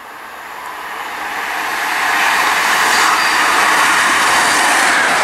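Diesel High Speed Train (InterCity 125) led by its Class 43 power car approaching at speed, its engine and wheel noise getting louder over about the first two seconds, then holding loud and steady as it runs in through the station without stopping.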